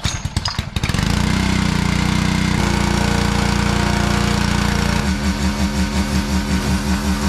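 Small gas engine of a pressure washer pull-started: it catches about a second in and runs steadily. From about five seconds in, the engine note pulses roughly three times a second.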